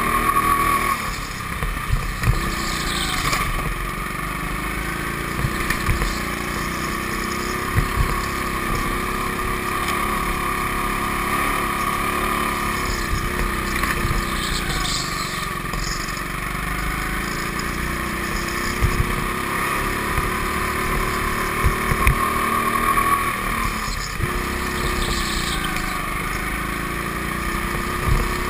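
Go-kart motor running steadily, heard from on board, its pitch slowly rising and falling as the kart speeds up and slows through the corners, with scattered short knocks.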